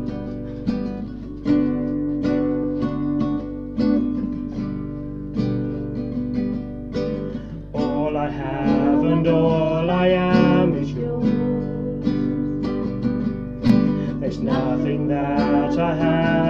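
Acoustic guitar strummed in a steady rhythm, introducing a worship song. About eight seconds in, singing joins the guitar, breaks off briefly, and comes back near the end.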